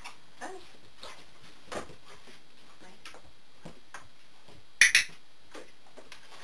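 A dog-training clicker clicked once about five seconds in, a sharp click-clack as it is pressed and released, marking the dog's correct behaviour. A few faint taps come before it.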